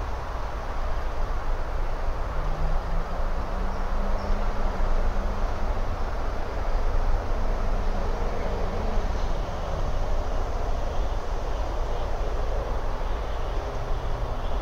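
Steady rumble of distant vehicle traffic, with a faint engine hum that drifts slightly in pitch in the first half and a steadier hum near the end.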